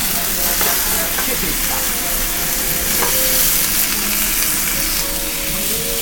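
Spinach and artichokes sizzling in hot olive oil in a sauté pan, the hiss jumping louder at the start, while metal tongs toss the greens and click against the pan a few times.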